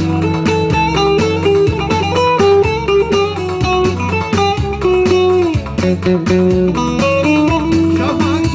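Live band music: an electric guitar plays a melodic lead line with bent notes over bass accompaniment.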